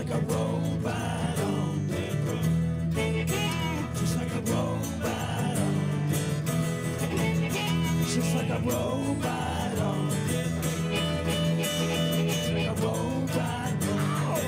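Live acoustic band music: acoustic guitar strumming with harmonica and a man singing.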